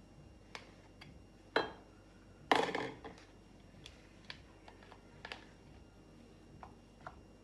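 A utensil knocking and scraping against a plastic tub and a glass bowl as a soft white solid is scooped into the bowl. Light scattered clicks, with two louder knocks, the second longer, between one and a half and three seconds in.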